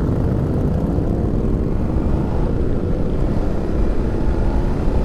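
BMW F850 GS Adventure's 853 cc parallel-twin engine pulling hard as the bike accelerates from a crawl, heard from the rider's seat amid other motorcycles of the group pulling away.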